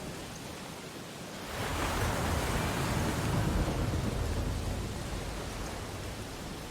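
Ocean surf on a beach: a wave breaks about a second and a half in, swells to its loudest, then slowly washes back out over a steady hiss of surf.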